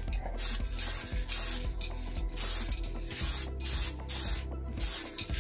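Paint being sprayed in short hissing bursts, about two a second.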